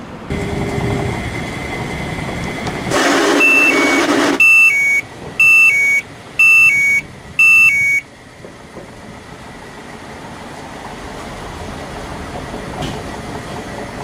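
Samsung top-loading washing machine: a loud noisy burst about three seconds in, then its control panel beeps four two-note beeps, about one a second. After that the tub runs with a steady mechanical noise that slowly grows louder, which the owner puts down to a slightly loose wash shaft and considers harmless.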